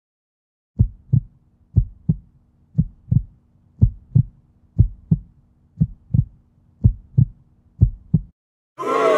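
Heartbeat sound effect: eight double thumps, lub-dub, about one a second over a faint low hum, stopping suddenly near the end.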